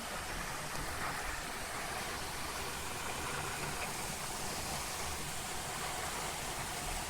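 Heavy rain pouring down, a steady even hiss of a downpour.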